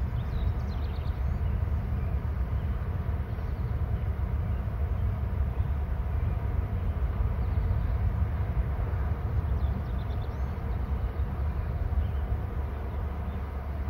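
Steady low rumble of wind on an outdoor microphone, with faint high chirps of small songbirds now and then, most clearly about a second in and again around ten seconds.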